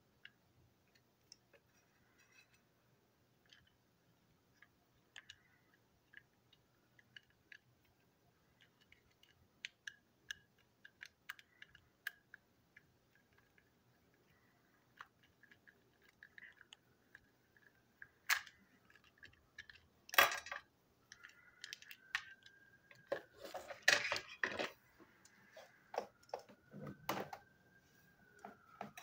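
Small clicks and scrapes of a precision screwdriver working the screws in the plastic underside of a TrackMaster toy van. In the second half come louder clattering knocks of plastic parts and the screwdriver being handled and set down on a table.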